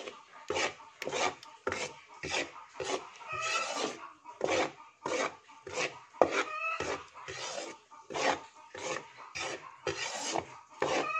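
Metal spatula scraping and stirring dry flour in a pan, in short strokes about two a second: flour being toasted until light brown, kept moving so it does not burn.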